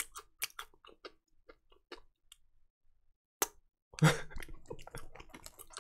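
A mouth crunching and chewing small crisp Gorae-bap whale-shaped crackers close to the microphone: a run of sharp crunches over the first two seconds or so, a pause, then denser chewing from about four seconds in.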